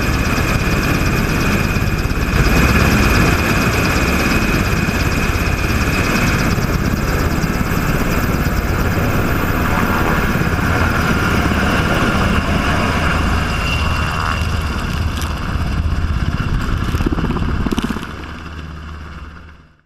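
UH-60 Black Hawk helicopter lifting off and departing: a steady rotor chop under a high turbine whine. It falls away quickly near the end.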